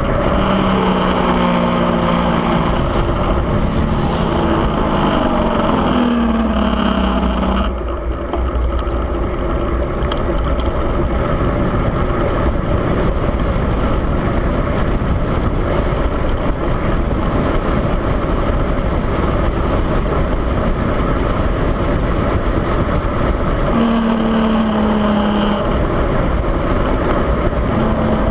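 Steady wind rush on the microphone of a moving vehicle on a downhill run, with its engine note gliding up and down for the first several seconds, dropping away, then returning briefly twice near the end.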